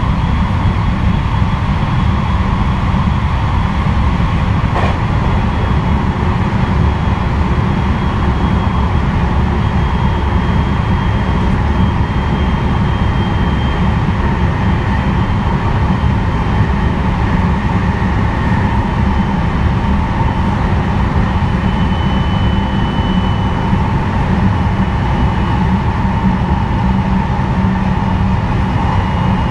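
223 series 3000 subseries electric train running along the line: a steady rumble of wheels on rail under the faint whine of its Hitachi third-generation IGBT inverter and traction motors, the whine drifting slowly in pitch, with a single click about five seconds in.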